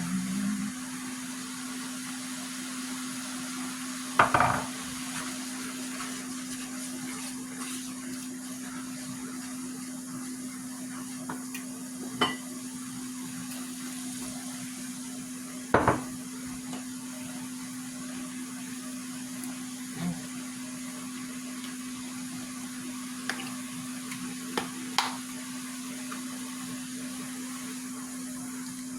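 Steady low hum with scattered clinks and knocks of kitchen utensils and pans, the loudest about four seconds in and again near the middle.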